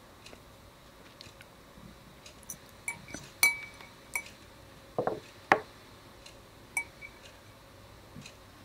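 Painting materials being handled on a work table: scattered light taps and clinks, a few with a short glassy ring. The loudest come about three and a half and five and a half seconds in.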